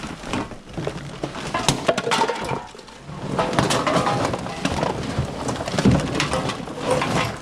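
Plastic garbage bags crinkling and rustling as they are handled and loaded, with scattered knocks and bumps.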